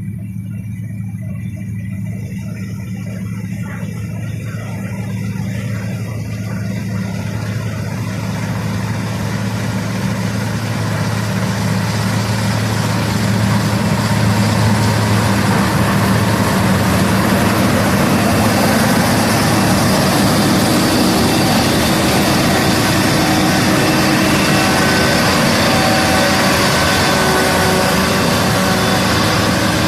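KZS-812 combine harvester's inline-six diesel engine running steadily. The sound grows louder and fuller over the first dozen seconds or so, then holds level.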